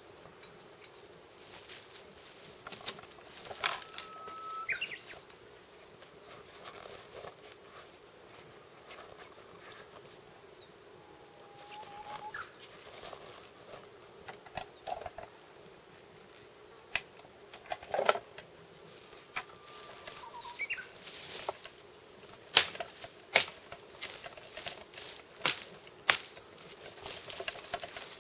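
Footsteps crackling and snapping through dry brush and twigs, getting louder and steadier, about one step a second, near the end. A bird whistles a few times in long even notes, some sliding upward at the end.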